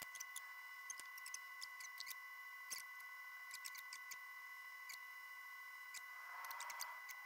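Faint, steady high-pitched hum with sparse, random crackling clicks over it, an added old-film style effect with no lathe or drilling noise in it.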